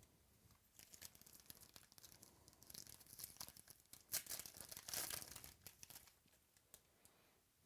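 Faint crinkling and tearing of a trading-card pack wrapper being opened by hand, busiest and loudest about four to five seconds in.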